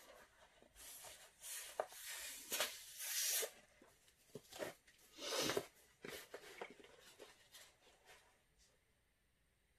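A series of short rustling and rubbing bursts, dense over the first six seconds or so and tailing off by about eight seconds.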